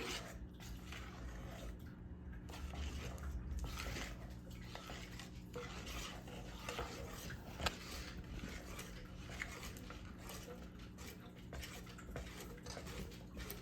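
A spoon stirring a thickening cornstarch-and-water mixture in a bowl, with irregular scrapes and clinks against the bowl and one sharper clink about eight seconds in.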